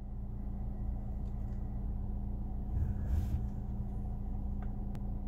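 A car idling, heard from inside its cabin as a steady low rumble and hum. There is a short louder swell about three seconds in and a single sharp click near the end.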